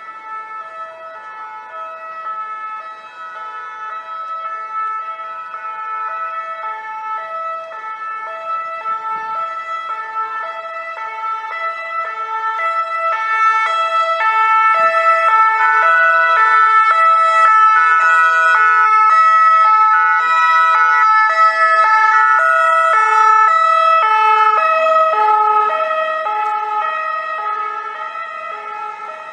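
French two-tone sirens of a fire-brigade VSAV ambulance and a SMUR emergency doctor's car, each switching back and forth between two pitches. From about twelve seconds in, two sirens sound out of step with each other and grow loud as the vehicles draw near and pass, then fade towards the end.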